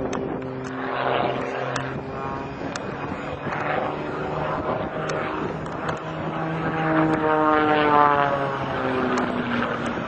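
Small aerobatic propeller plane running overhead through a display manoeuvre. Its engine note shifts in pitch as it manoeuvres, swells to its loudest about eight seconds in, then falls in pitch.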